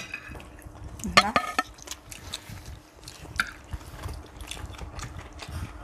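Metal spoons and forks clicking and scraping on china plates and bowls during a meal, a run of small scattered clinks, with a short voiced hum about a second in.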